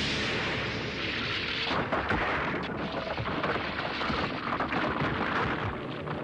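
Cartoon sound effect of the ground cracking apart and shattering under a punch's shockwave: a steady rumbling rush, then from about two seconds in a dense crackle of breaking rock and falling debris.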